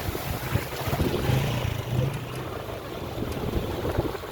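Wind buffeting the microphone in uneven low rumbles over a steady rushing noise.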